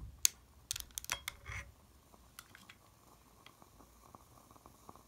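A handful of sharp clicks and light knocks in the first two seconds as a long-nose lighter is taken away from a small tabletop burner, the loudest a single click just after the start. After that only faint, scattered light ticks.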